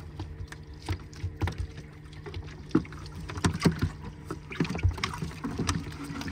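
A small fishing boat's engine idling with a steady low hum, under irregular knocks and taps on the boat's deck and hull.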